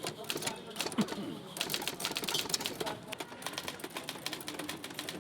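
Typewriter being typed on at speed: a fast, uneven run of sharp key strikes.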